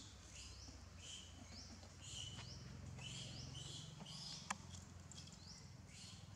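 Faint bird chirping in the background: short, high, rising chirps repeated about twice a second over a low steady hum, with one sharp click about four and a half seconds in.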